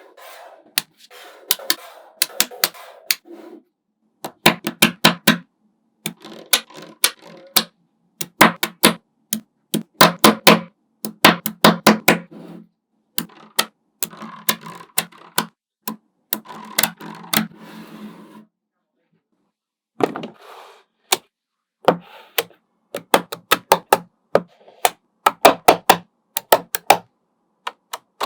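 Small magnetic balls clicking sharply as they snap onto one another, in quick runs of several clicks a second broken by short pauses, with a faint rattle between the runs.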